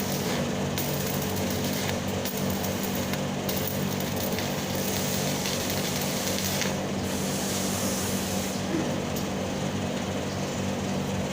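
Stick welding: the arc crackles and hisses steadily over a constant low hum, the hiss dropping away briefly a few times.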